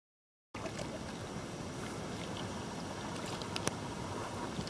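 Kayak on a calm river: a steady hiss of water and air starting about half a second in, with a few faint drips and light knocks and one sharper click late on.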